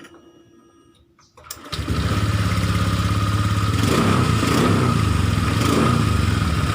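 Honda Vario 125 scooter's liquid-cooled single-cylinder engine starting about one and a half seconds in, then settling into a steady idle. It runs smoothly, without the grinding that came from the radiator fan rubbing against its cover.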